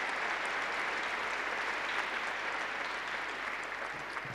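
Crowd applauding, a dense steady clapping that eases off slightly near the end.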